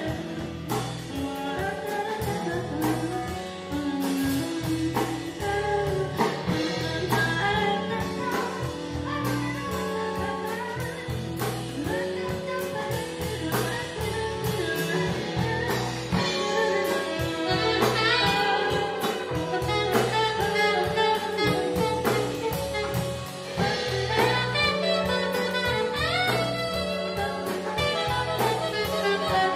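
Live band music: electric guitars, drum kit and saxophones playing a steady beat, with a singer on a microphone.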